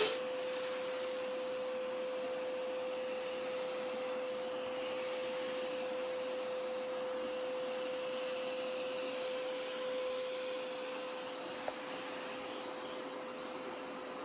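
Hoover Power Scrub Elite Pet carpet cleaner running with its hose tool: a steady suction hiss with a constant whine, and one small click near the end.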